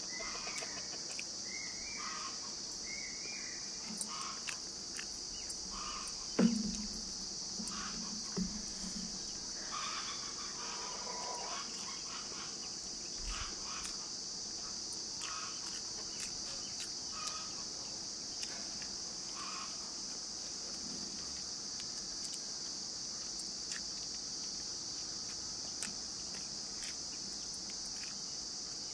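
Steady high-pitched drone of insects, with soft mouth clicks and smacks from someone eating rice by hand. A few short chirps in the first seconds, and a single dull knock about six seconds in.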